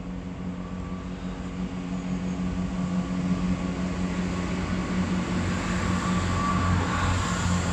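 A steady low motor hum with a constant droning tone, growing gradually louder.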